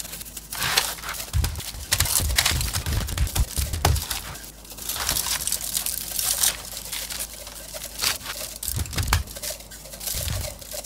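Dry rub being shaken from a perforated shaker onto a brisket in a foil-lined pan: a run of small clicks and rustling, with aluminium foil crinkling and dull thumps as a gloved hand pats the meat.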